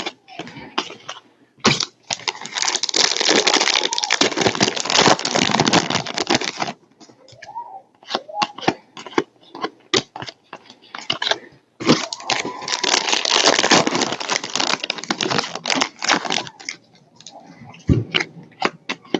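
Foil trading-card pack wrappers crinkling and tearing open in two stretches of a few seconds each, with scattered sharp clicks and snaps of cards being handled between them.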